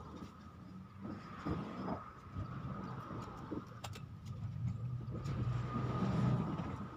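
A motor engine running out of sight, its low hum swelling louder about five to six seconds in, as if it passes close by.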